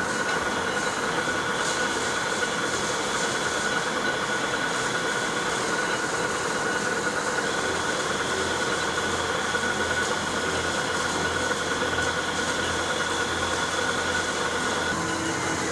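Large Weipert heavy lathe running, a steady mechanical hum from its drive with a constant high whine on top. Near the end the whine falls in pitch and a lower tone takes over.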